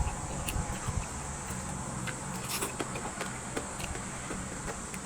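Small scattered clicks and smacks of someone chewing food, over a steady high-pitched background buzz.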